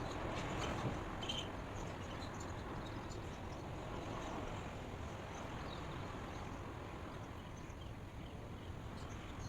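Steady outdoor background noise, heaviest in the low range, with faint short high chirps scattered through it.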